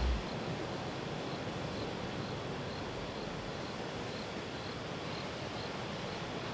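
Steady rush of ocean surf and wind, with a faint high chirp repeating about twice a second. There is a brief low thump right at the start.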